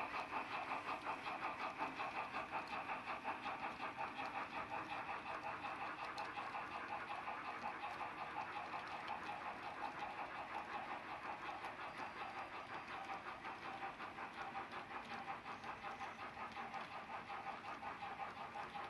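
H0-scale model freight train rolling past: a steady rhythmic clatter of many small wheels on the track with a hum, slowly fading as the wagons move away.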